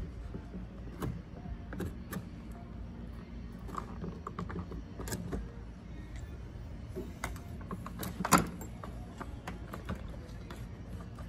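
Screwdriver prying at the clutch side of a Stihl MS661 chainsaw: scattered metal clicks and scrapes of the tool against the saw, with one louder knock about two-thirds of the way through.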